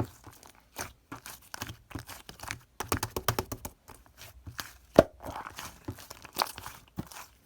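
Fluffy slime being squished and stretched by hand, giving a run of sticky crackles and small pops, with one sharp pop about five seconds in.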